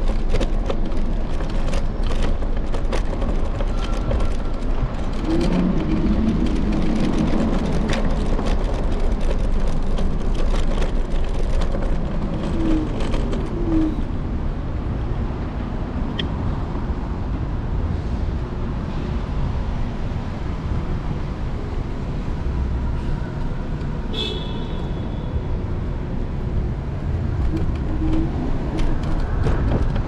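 City street sound from a moving electric scooter: a steady rumble of wind and road noise on the microphone with passing car traffic. A pitched whine rises and falls a few times.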